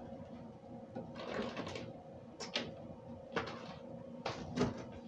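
Kitchen handling sounds: a few brief knocks and rustles, the sharpest a little past halfway and near the end, over a faint steady appliance hum.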